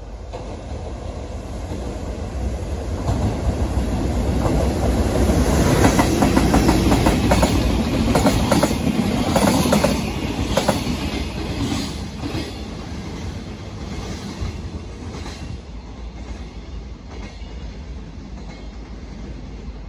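Container freight train passing through a station. The sound builds as the locomotive approaches, then the wheels of the container flatcars give a rapid clickety-clack over the rail joints, loudest about six to ten seconds in, before it fades away.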